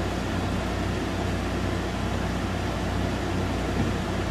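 Steady room noise: an even hiss over a low hum from a ceiling fan running.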